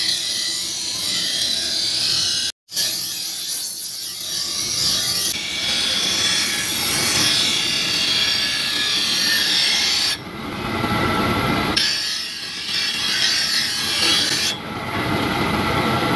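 Electric bench grinder's abrasive wheel grinding a steel knife blade: a steady, harsh rasping of metal against the spinning stone as the blade is shaped. The sound stops for a moment about two and a half seconds in, and its tone shifts abruptly a few times later on.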